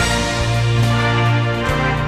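Background music with sustained chords over a held bass note and a light beat.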